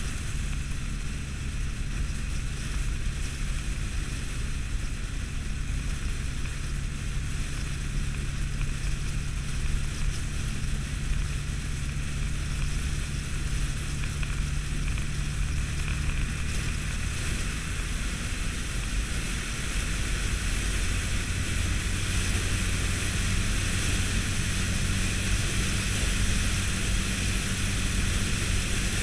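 Honda ST1300 Pan European motorcycle at steady motorway speed: the V4 engine's low hum under heavy wind rush on the microphone. About two-thirds of the way through, the engine note settles lower and the wind noise grows a little louder.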